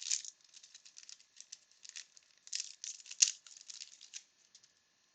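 Wax-paper wrapper of a 1992 Bowman baseball card pack crinkling and crackling as the pack is opened and the cards are handled. The crackles come in quick, dense runs, loudest right at the start and again about three seconds in, and stop about four and a half seconds in.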